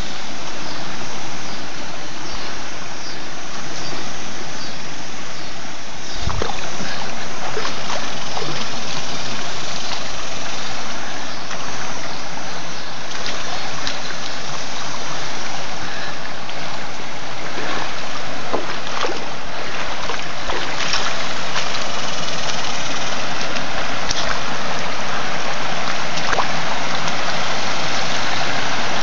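Creek water rushing and splashing over rock ledges in shallow riffles and small spills, a steady loud rush.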